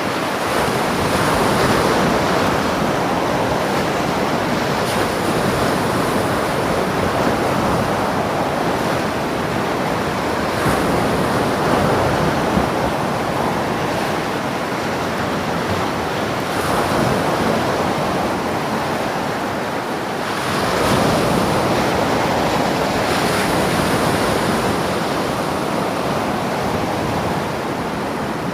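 Ocean surf: a steady rush of waves that rises and falls in slow swells every several seconds.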